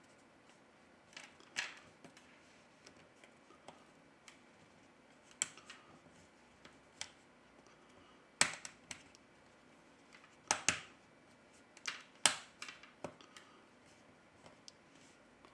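Irregular sharp clicks and taps of small tools and phone parts being handled and fitted together during smartphone reassembly, with several close-together clicks in the second half.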